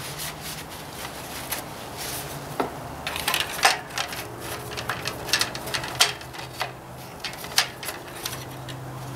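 Irregular light clicks and taps of the oil dipstick and filler being handled while the engine oil level is checked. A steady low hum runs underneath.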